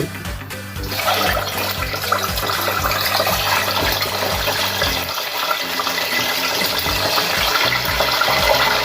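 Gizzard and turkey meat sizzling as it fries in hot oil: a loud, even hiss that starts suddenly about a second in.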